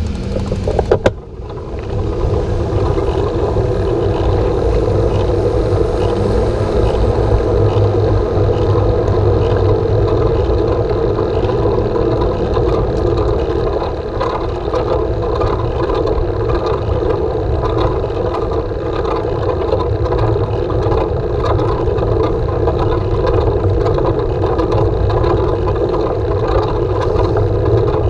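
Steady rush of wind on a handlebar-mounted camera's microphone, with road rumble from a road bicycle rolling on asphalt. A few sharp clicks come about a second in.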